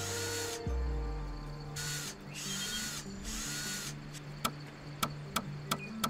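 Cordless drill running in several short bursts, each with a rising and falling whine, as it bores into a log. From about four and a half seconds in, a series of sharp hammer knocks, two or three a second.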